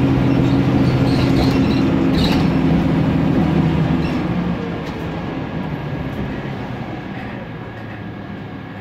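Interior ride sound of a Mercedes-Benz Conecto G articulated bus with its rear-mounted CNG engine: a steady engine and drivetrain hum with a few light rattles of interior fittings. About four seconds in the hum drops away and the sound grows quieter as the bus eases off.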